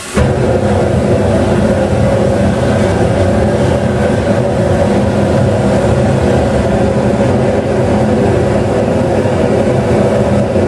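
Gas forge burners lighting the moment the gas valves are opened, with a sudden onset, then burning loudly and steadily: a rushing noise with a steady low hum in it.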